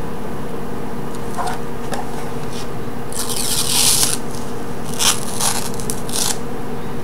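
Clear plastic wrapping rustling as it is pulled off a modem router: one long rustle about three seconds in, then a few short crinkles. A steady low hum lies underneath.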